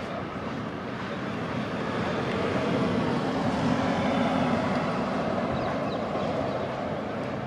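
A passing vehicle's rumble that swells about two seconds in and fades again after about five.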